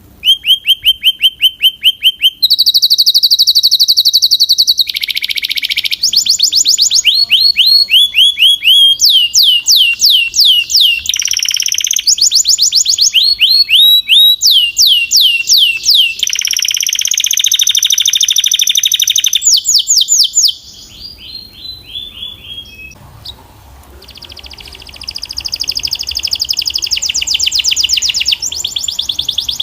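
Belgian canary singing a long, loud song of rapid trills and runs of repeated notes, switching to a new phrase every second or two. About two-thirds through it breaks off briefly, then starts again softly and builds back up.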